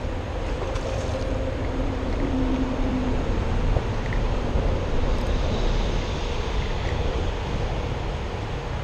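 Steady wind noise rumbling on the microphone, over the whirr of a spinning reel being wound in while a hooked fish is brought to the bank.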